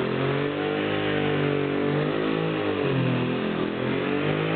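Hutchins pneumatic orbital longboard sander running, wet-sanding primer with 320-grit paper; its pitch sags and rises again as the load on the board changes.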